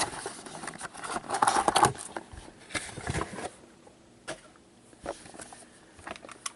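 Gloved hands working to open a sealed hockey card box: irregular rustling and crinkling for the first few seconds, then quieter handling with a few small clicks.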